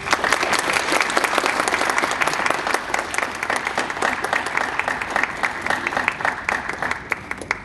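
Audience applauding, a dense patter of many hands clapping that starts all at once and thins out, ending just before the end.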